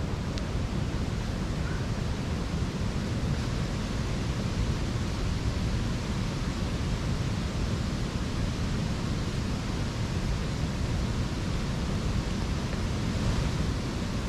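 Steady rushing of wind and lake waves, with a fluttering low rumble of wind on the microphone.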